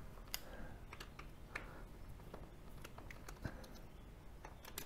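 Faint, irregular small clicks and ticks of a screwdriver working the machine screws out of a stepper motor's aluminium end cap, with the motor handled in the hand.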